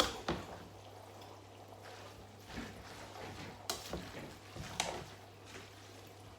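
Light kitchen handling while cooking: a few scattered soft clicks and knocks of containers and utensils over a faint liquid, pouring sound.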